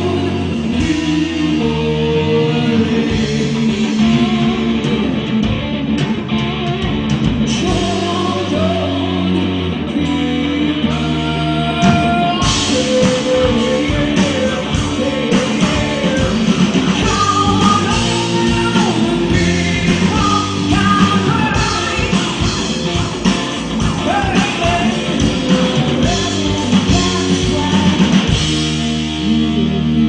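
Live rock band playing: a woman singing lead over electric guitars, bass and a drum kit.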